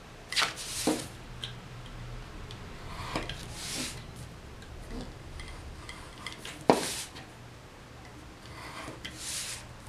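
Scissors cutting paper freehand: a few sharp snips, one loud click about two-thirds through, and short papery swishes in between.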